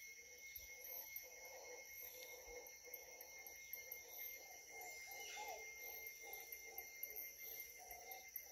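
Distant howler monkeys calling in a faint, pulsing chorus, over steady high trills of insects.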